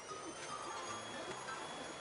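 Vacuum cleaner running, its motor whine reaching a steady high pitch about half a second in, under background music with light chime-like notes and a bass line.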